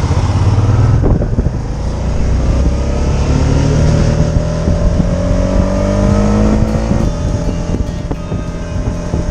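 Motorcycle engine running on the road under heavy wind rumble, its pitch rising steadily for several seconds as it accelerates.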